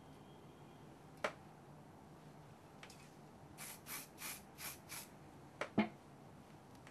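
A comb backcombing (teasing) a section of hair: five quick, short rasping strokes in about a second and a half. There is a sharp click before them and two sharp clicks just after.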